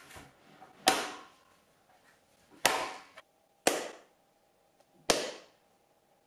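Single hand claps, four of them about one to two seconds apart, as a room echo test. The first two ring on with a long echoey tail in a bare, reverberant room; the last two die away noticeably faster once the walls carry IKEA EKET storage cabinets.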